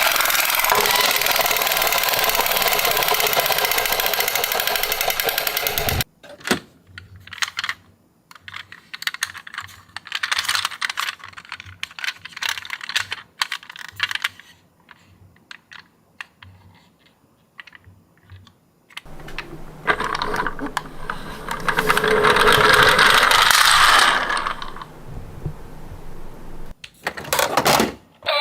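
Small toy cars clattering and clicking against each other and a hard surface. A dense rattle for the first six seconds gives way to scattered clicks, then another loud rattling stretch starts about twenty seconds in, with a short burst near the end.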